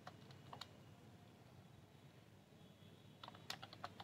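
Faint keystrokes on a computer keyboard: a couple of lone key clicks in the first second, then a quick run of typing over the last second, with near silence between.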